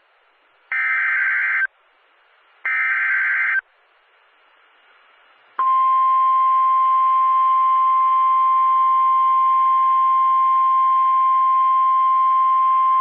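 NOAA Weather Radio Emergency Alert System signal. First come two one-second bursts of digital SAME header data tones, about a second apart. Then, after a short gap, the steady 1050 Hz warning alarm tone begins about five and a half seconds in and holds unbroken, announcing a severe thunderstorm warning.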